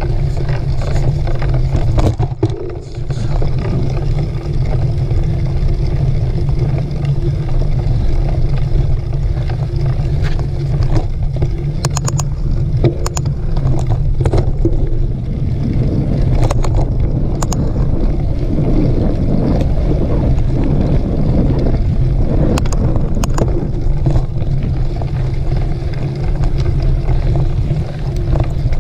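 Heavy wind rumble on a moving mountain-bike camera's microphone, with irregular clicks and rattles from the bike jolting over a rough dirt trail.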